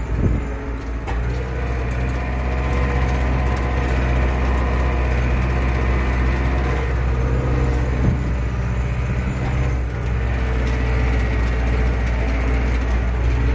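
Zetor 6340 tractor's four-cylinder diesel engine running steadily under load while skidding an oak log, heard from inside the cab.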